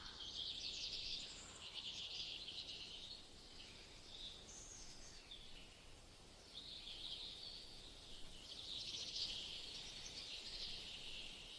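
Forest ambience of insects chirring: a high, buzzy trill that swells and fades in long waves and is weaker for a few seconds in the middle.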